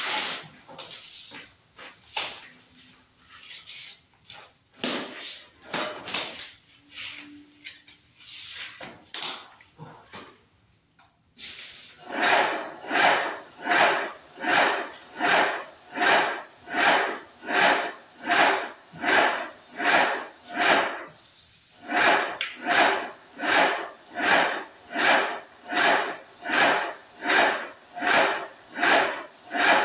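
Graco airless paint sprayer spraying oil-based primer. Scattered irregular noises at first, then about eleven seconds in a steady spray hiss starts, with an even pulsing about one and a half times a second. The hiss stops briefly near twenty-one seconds and starts again.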